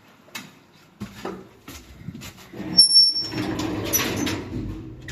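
Elevator cab's sliding doors closing: a few clicks and knocks, then about three seconds in a short, piercing high squeal, the loudest sound here. A rumbling clatter follows as the doors shut.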